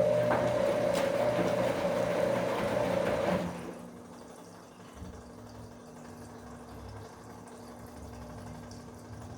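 Bosch Komfort-Klasse washing machine taking in water: a loud rush of water with a steady tone for about three and a half seconds, which then shuts off and leaves a quieter low hum.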